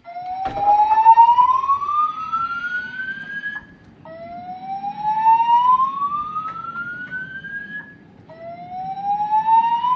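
Fire alarm voice-evacuation system sounding its alert tone through the building speakers: a rising sweep in pitch, each lasting about three and a half seconds, heard three times with short gaps between. It is the evacuation signal played between the recorded announcements.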